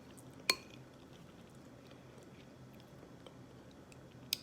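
Quiet eating sounds: a spoon clinks against a bowl about half a second in, with a short ring, and again near the end, with faint chewing between.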